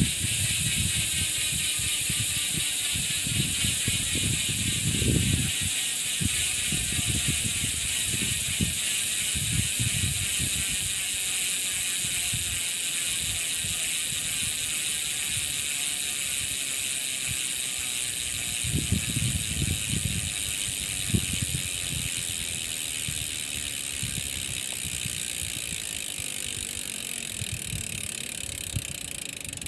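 Speedone Soldier six-pawl rear bicycle hub freewheeling, its pawls buzzing as a fast, loud ratchet that slowly fades as the wheel coasts down.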